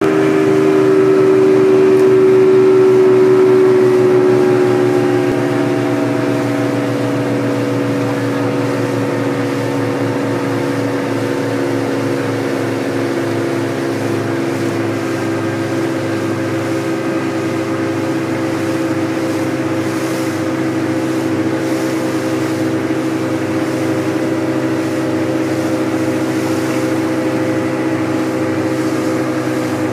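Boat engine running steadily under way. It is a little louder for the first few seconds, then its pitch and level ease down slightly about five seconds in and hold steady.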